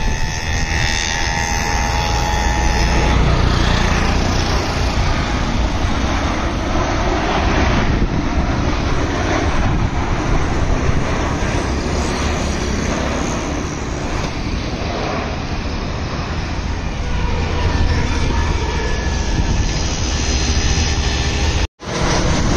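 Jet airliner flying low overhead on approach with its gear down, its engines making a steady loud rumble mixed with city road traffic. The sound cuts out for an instant near the end and resumes.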